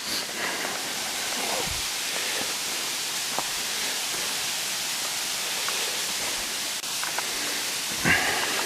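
Steady rush of falling water from a mountain stream and waterfall.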